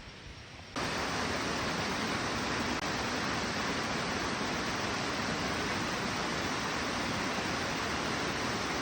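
Waterfall rushing, a steady wash of falling water that cuts in abruptly about a second in and holds even.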